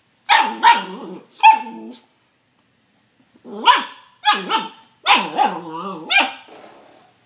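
Young puppy barking at a spring doorstop in play: a run of three or four barks, a pause of about a second and a half, then another run of five or six barks.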